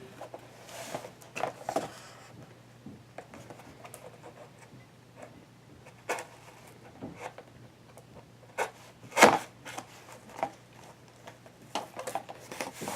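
Packaging being worked open by hand: scattered rustles, scrapes and clicks, with a sharp knock about nine seconds in.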